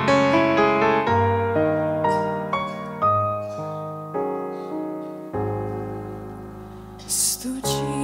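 Slow piano introduction: single notes and chords that strike and die away, ending in a long held chord that fades for several seconds. Near the end a woman's voice comes in, singing through the church's microphone.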